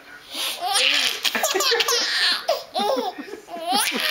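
A baby laughing hard: breathy, gasping bursts of laughter, turning into higher pitched laughs that rise and fall in the second half.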